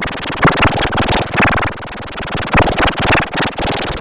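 A dense, loud jumble of overlaid meme sound effects: many sharp hits and bursts stacked on top of each other. It cuts off abruptly at the end.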